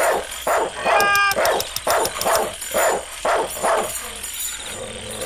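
A dog barking in a fast, even run of about three barks a second, with one higher, clearer yelp about a second in; the barking stops a little before the end.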